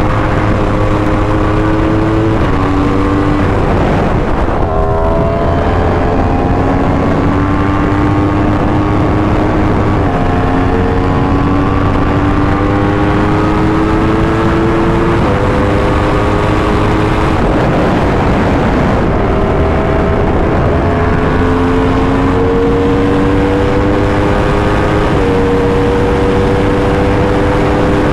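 2020 Yamaha R1's crossplane inline-four, fitted with an SC Project exhaust, running under load while riding: the pitch climbs steadily through each gear and drops at each of about eight gear changes.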